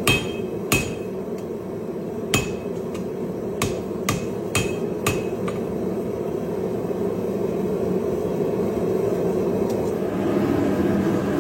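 Forging hammer striking a hot laminated steel billet on an anvil: about seven blows at an uneven pace, each with a short metallic ring, stopping about five seconds in. A steady running noise continues underneath throughout.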